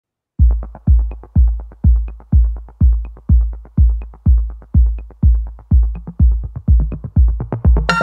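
Electronic background music with a drum-machine beat: a heavy low kick drum about twice a second with quick hi-hat ticks between, starting just after the beginning. A synthesizer melody comes in near the end.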